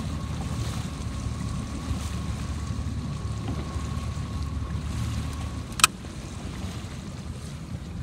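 Wind buffeting the microphone over choppy water, with a faint steady whine that stops at a single sharp click about six seconds in.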